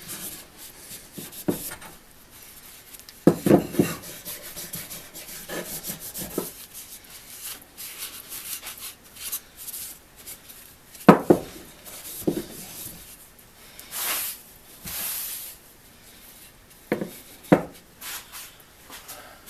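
Cloth rag rubbing and scuffing over a wooden saw handle, working finish into it, with a few sharp knocks of the handle against the wooden workbench.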